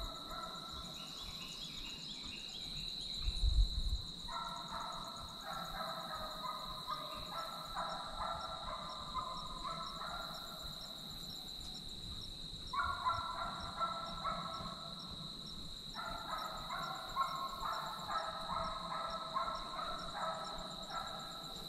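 A pack of hunting hounds baying in the distance, several dogs calling over one another in long bouts with short pauses between. A steady high-pitched tone runs underneath, and a low thump comes a few seconds in.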